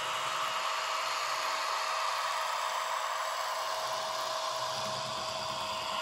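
Märklin H0 Krokodil (Ce 6/8) model locomotive running along the track. Its ESU sound decoder plays a steady, whirring electric-locomotive running sound with a constant tone.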